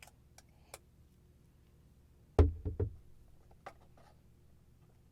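Handling noise from a cologne bottle and its packaging: a few light clicks, then three quick knocks with a dull thud about two and a half seconds in, and two softer clicks after.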